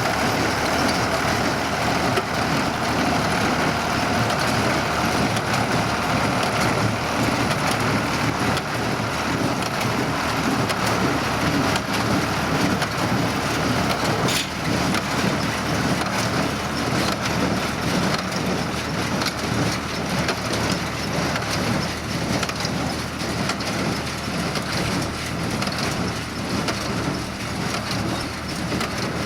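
Ford 3000 tractor running a small square baler, the baler steadily crunching and compressing hay along with the engine's running noise.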